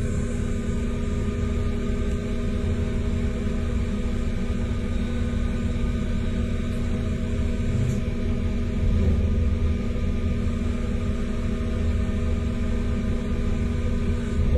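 Brother SPEEDIO machining center turning the bore of a metal ring spinning at 1,500 rpm with an I.D. tool under coolant: a steady machine hum with several held tones over a low rumble.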